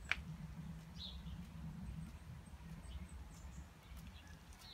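Faint outdoor ambience: a few short, high bird chirps over a low steady rumble on the microphone, with one sharp click near the start.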